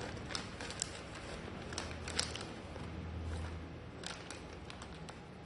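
Scattered light clicks and taps of small objects being handled, over low background noise, with a low hum that swells for about a second and a half near the middle.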